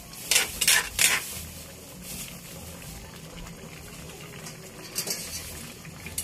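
A spatula scraping and knocking against a metal wok as vegetables and broth are stirred, three sharp strokes in the first second or so and another about five seconds in, with the chopsuey simmering steadily in between.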